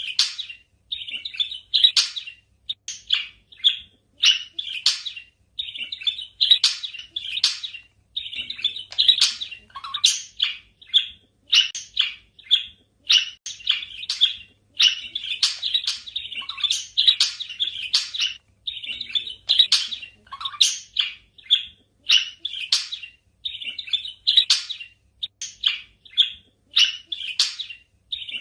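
Budgerigars chirping and chattering without let-up, a rapid stream of short high chirps with brief pauses between runs.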